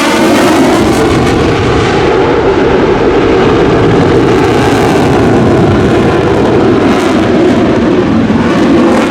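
F-35A Lightning II's Pratt & Whitney F135 jet engine in flight, a loud, steady roar with no break.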